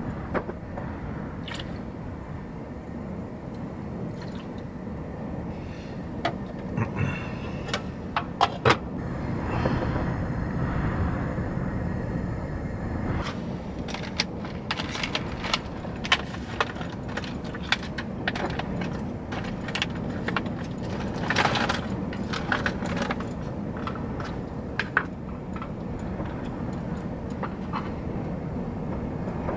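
Cookware handling: a pot, lid and utensils clinking, knocking and scraping in scattered bursts over a steady low rumble, with a few seconds of hiss about nine seconds in.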